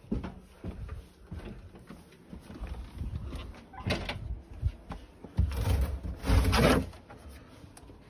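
Footsteps and scattered knocks of someone walking and handling things, with a louder scraping rustle lasting about a second and a half, starting about five and a half seconds in.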